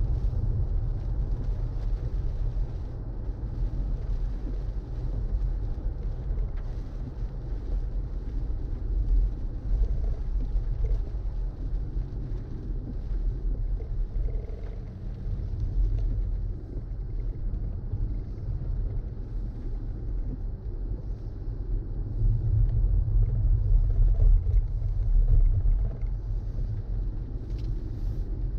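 Low, steady road and tyre rumble of a BMW i4 M50 electric car on the move, swelling louder about ten seconds in and again for a few seconds near the end.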